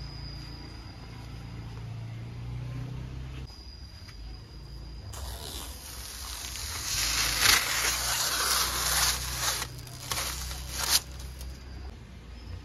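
Thin protective plastic film being peeled off a new scooter's clear windscreen: a crinkling, tearing hiss starting about five seconds in, with sharp crackles, the loudest one near the end.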